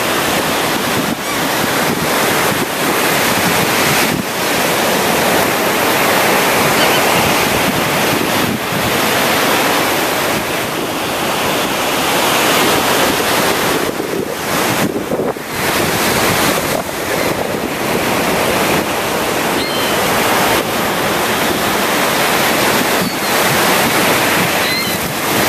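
Surf breaking and washing up the beach in a continuous loud rush that swells and eases, with wind buffeting the microphone.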